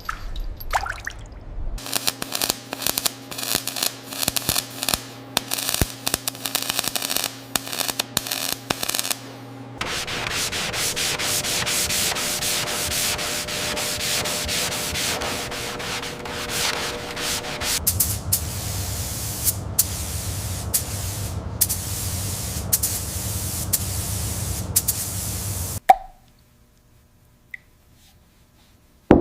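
Workshop restoration noise in a few abrupt segments: scraping and rubbing with many clicks over a steady hum, then a stretch of even hissing like spraying, then a low motor hum with more scraping. It cuts off suddenly a few seconds before the end.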